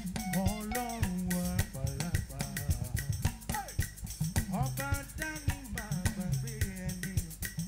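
Live upbeat gospel praise music: a band with a drum kit keeping a steady beat under a moving bass line, and a man singing over it into a microphone.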